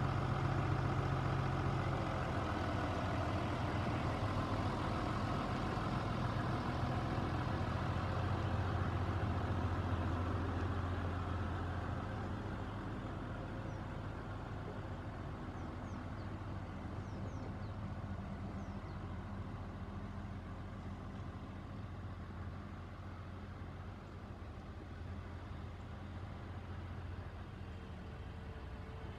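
New Holland T6050 tractor's six-cylinder diesel engine running as the tractor drives away. It is loud for the first twelve seconds or so, then fades steadily as it moves off.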